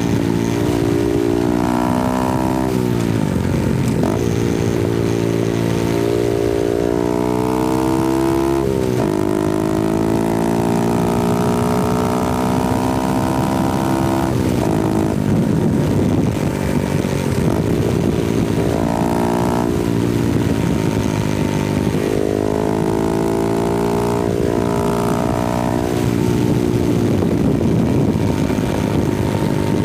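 Honda Grom's 125cc single-cylinder four-stroke engine and exhaust under riding load, the engine pitch climbing and dropping sharply again and again as it shifts through the gears.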